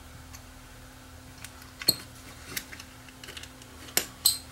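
Small sharp clicks and taps of a screwdriver working a metal spring clip and parts loose inside the plastic housing of a Polaroid wink-light flash unit, with the loudest click about two seconds in and two more close together near the end.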